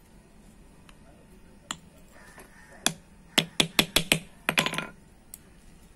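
Small hammer tapping on a drum-brake shoe braced on the head of an old engine valve, setting the rivets of a new brake lining. Two single sharp metal taps, then a quick run of about ten.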